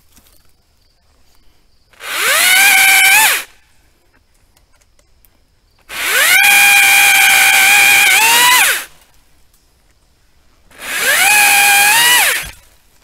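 Makita XAU02PTB 36V cordless pole saw running in three bursts, its chain cutting through branches of a downed tree. Each burst spins up to a steady high whine, climbs in pitch just before it stops, then winds down; the middle burst is the longest.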